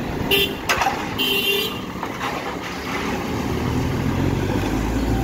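Bus and motorcycle traffic: a vehicle horn toots twice in the first couple of seconds over steady engine noise. Near the end a bus engine's low rumble builds as it pulls away.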